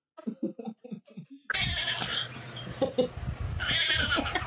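A cat giving a run of about eight short, quick bleat-like cries. These are followed by a noisier stretch with a higher-pitched cry near the end.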